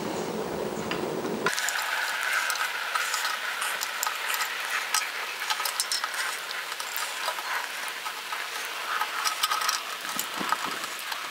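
Fingers pressing and smoothing epoxy fuel-tank repair putty over a small rust hole on a steel Yamaha XJ900S petrol tank: a run of small clicks, crackles and scrapes of skin and putty on the metal. A duller, lower noise in the first second and a half cuts off abruptly.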